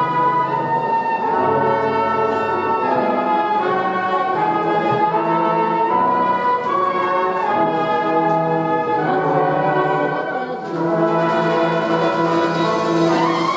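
A cornet band playing a slow melody in harmony, with held brass notes changing step by step. The level dips briefly about ten seconds in.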